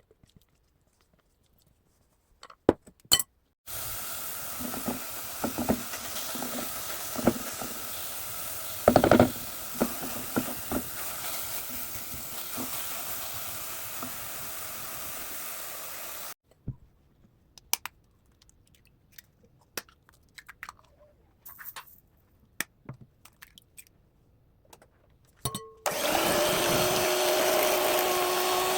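A small electric kitchen appliance motor runs steadily for about twelve seconds, with knocks and clatter over it, then stops. After some scattered clicks and taps it starts again near the end with a steadier, humming pitch.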